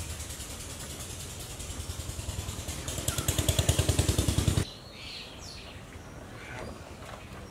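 A small engine running with a rapid, even pulse, growing louder, then cut off abruptly about four and a half seconds in. Birds chirp after it.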